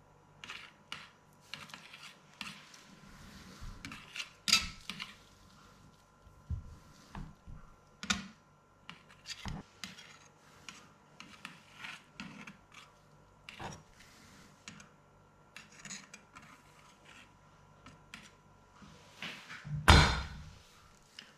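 Kitchen utensils and dishes being handled: scattered light clinks, taps and rubbing, with one louder knock near the end.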